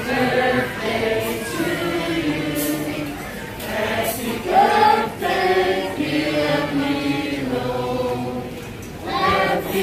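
A large group of people singing together, holding long notes phrase after phrase.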